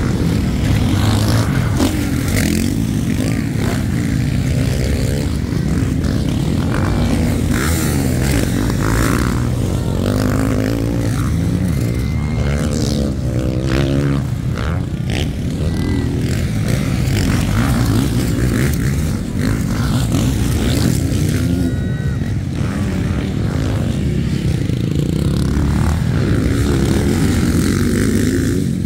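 Motocross dirt bikes racing around a dirt track, engines revving up and down as they pass, heaviest about a third of the way in, over a constant low rumble.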